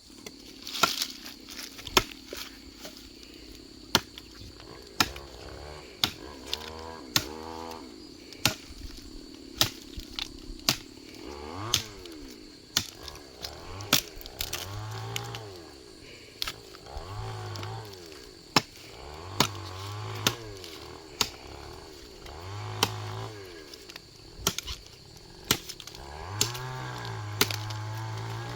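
Repeated sharp chopping or knocking blows, roughly one a second, during tree trimming. Between them come short bursts of a low pitched drone that rises and falls, over a steady high-pitched whine.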